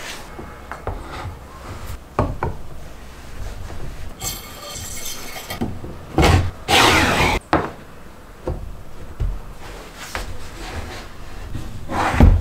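A wooden sliding jig being handled: wooden blocks knocking and sliding on steel rods fitted with coil springs. There is a metallic rattle about four seconds in, a louder scraping slide around seven seconds, and a sharp knock near the end.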